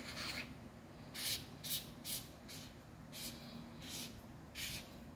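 Faint short scraping rasps, roughly two a second, as the tail cap of a Nextool flashlight is twisted onto the threads of its body to close in the battery.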